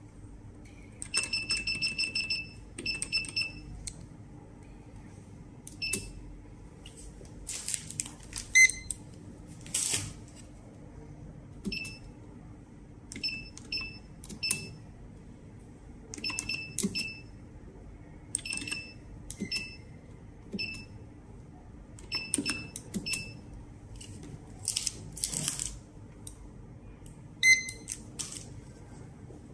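Veissen electronic cash register keypad beeping as keys are pressed: short, identical high beeps, mostly one at a time, with a fast run of them about a second in. A few louder rustling noises come between the presses, and near the end a lower beep from a handheld barcode scanner.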